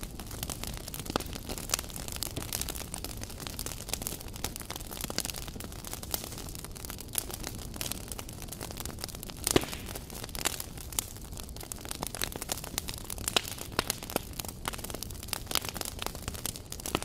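Wood fire under a saç griddle crackling, with many irregular sharp pops over a steady hiss; one pop about nine and a half seconds in is louder than the rest.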